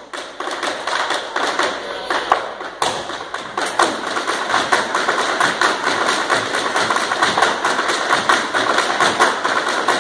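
Irish dance hard shoes of several dancers striking a wooden floor together in a rapid, dense run of clicks and taps that grows busier about three seconds in.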